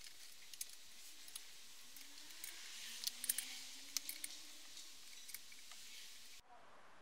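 Light metallic clicks and taps of a hex key turning bolts on a disc brake caliper bracket, over a faint hiss. The clicks come thickest a few seconds in, and the hiss cuts off just before the end.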